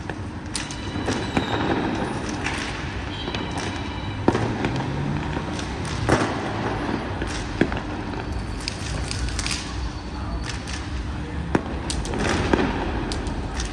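Firecrackers going off in scattered sharp cracks, a dozen or so, the loudest about four, six, seven and a half and eleven and a half seconds in, over the steady hum of street traffic and distant voices.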